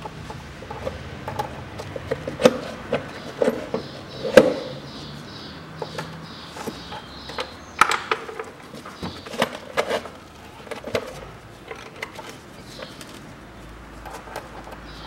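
Scattered, irregular clicks and knocks of a Daewoo Matiz's plastic air filter housing being lifted and handled, the loudest knocks in the first half.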